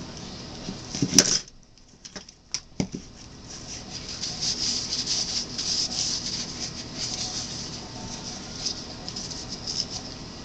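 Handling noise on a work table: a sharp knock about a second in, a few light clicks, then several seconds of uneven rubbing and rustling.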